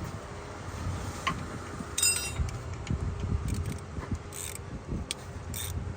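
Metal clinks and clicks of hand tools and small steel bolts being handled while a car's AC compressor is unbolted, with one bright ringing clink about two seconds in.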